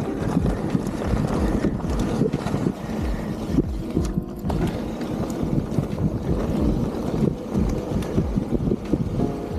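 Wind buffeting the action camera's microphone while riding a mountain bike along a trail, with a steady low rumble and many irregular knocks and rattles from the bike over rough ground.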